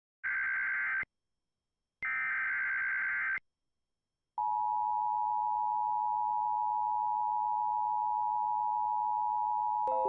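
Emergency Alert System tones: two short bursts of warbling SAME header data, each about a second long with silence between. These are followed by the steady two-tone EAS attention signal, a loud unbroken tone just under 1 kHz that begins a little over four seconds in. Just before the end a click and some lower tones come in.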